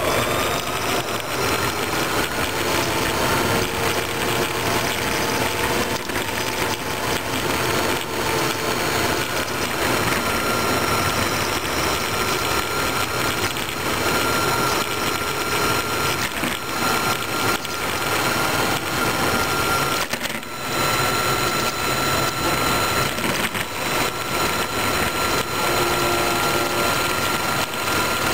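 Radio-controlled truck driving on asphalt, heard from a camera mounted on it: a steady motor whine over a rough, continuous drivetrain and tyre noise, which drops out briefly about twenty seconds in.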